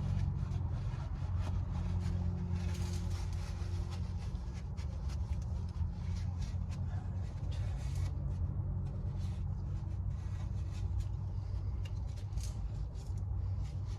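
Rag wiping and handling noises as spilled oil is cleaned off the oil filter housing, in short scattered scrubbing sounds. Under them runs a steady low hum.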